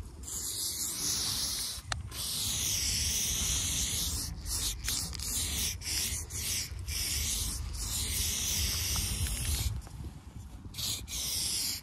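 Aerosol spray paint can hissing as a black line is sprayed, in long bursts broken by several brief pauses, over a low rumble.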